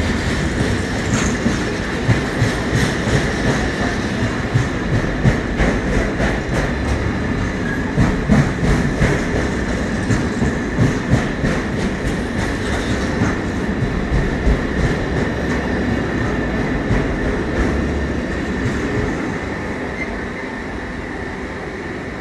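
Intermodal container freight train running past, its wagon wheels clattering rhythmically over the rail joints with a thin steady high whine; the noise fades near the end as the last wagons go by.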